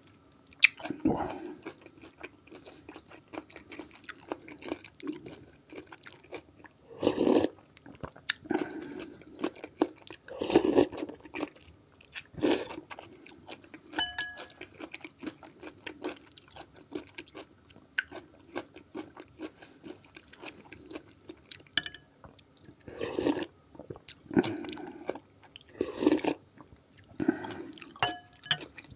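Close-miked eating: chewing and slurping spoonfuls of okroshka, a cold soup of radish, egg, potato and greens in a watery vinegar-and-mayonnaise base, with a metal spoon clinking against the glass bowl now and then.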